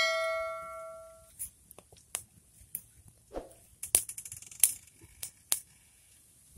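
A chime sound effect rings out and fades within about a second and a half. After it, dry leaves and twigs burning on the ground crackle with sharp, irregular pops, over a faint hiss.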